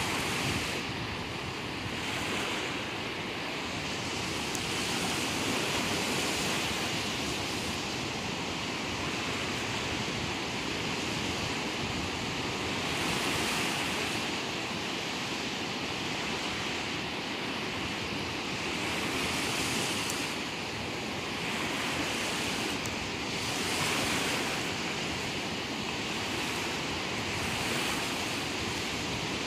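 Sea waves breaking in the shallows among rocks: a steady wash of surf that swells every few seconds as each wave comes in.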